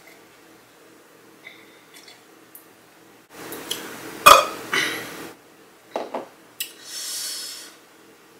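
A person burps with the mouth open after a sip of drink, about three seconds in, with a sharp click at its loudest point. A few small mouth sounds follow, then a long breathy exhale near the end.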